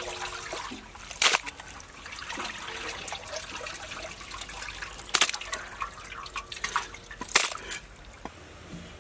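Water trickling and splashing as handfuls of raw chicken pieces are lifted from a large metal pot of wash water and drained back into it. There are three louder splashes: about a second in, just past halfway, and near the end.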